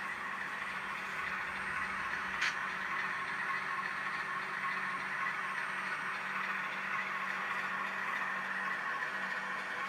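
HO scale model train running on the layout's track: a steady whir and rattle of wheels and motor over a low hum, with a single sharp click about two and a half seconds in.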